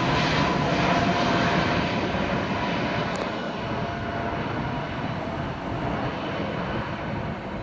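Airplane engines fading away after a low-flying plane on its landing approach has passed overhead: a steady rushing noise with a faint whine, slowly growing quieter.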